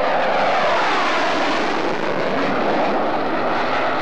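Jet noise of an F-4 Phantom's twin J79 turbojets, loud and steady, as it climbs away after takeoff. A sweeping, phasing tone falls in pitch over the first couple of seconds, then rises again as the jet passes and recedes.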